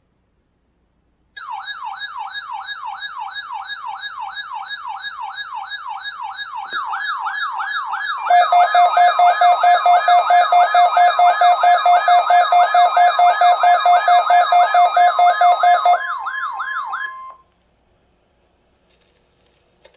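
Electronic siren-style alert tone sweeping rapidly up and down in pitch. About eight seconds in it grows louder, joined by a pulsing tone and then a steady tone. Everything cuts off about seventeen seconds in.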